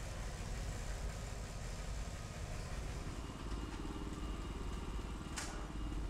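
An engine running steadily with a low rumble, a faint hum rising over it in the second half, and one short sharp click near the end.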